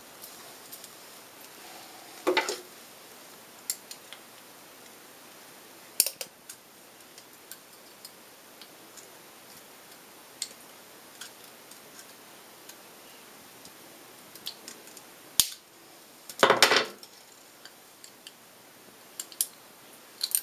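Small metal clicks and snips of hand dental instruments, a locking clamp and pliers, twisting and trimming orthodontic ligature wire at the teeth while the jaws are wired shut. The clicks are scattered, with a louder one about two and a half seconds in and a close burst about three quarters of the way through.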